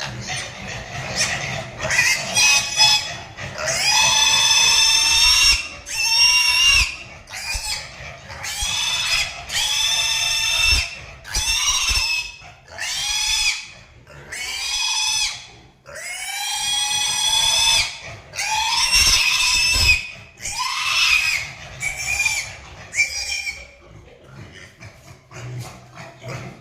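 Pig squealing over and over: a long run of loud, shrill screams one after another, with short breaths between, growing weaker near the end.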